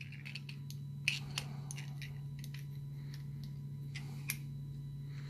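Small metallic clicks and scrapes of a screwdriver working at the tight, threadlocked screws in a thumb ratchet's aluminium roto head, a few sharper clicks among them, over a steady low hum.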